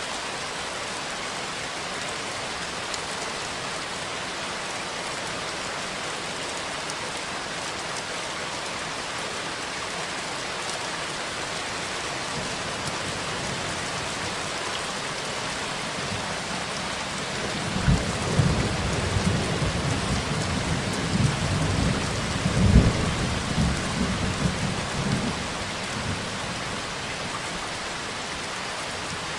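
Steady heavy rain hissing, with a long roll of thunder rumbling in about two-thirds of the way through and fading out some eight seconds later.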